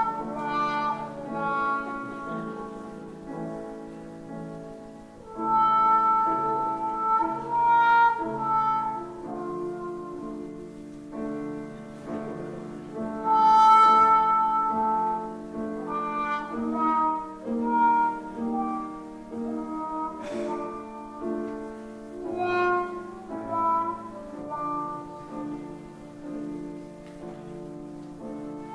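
Trumpet and trombone playing a melodic duet over piano accompaniment, in phrases that swell and pause.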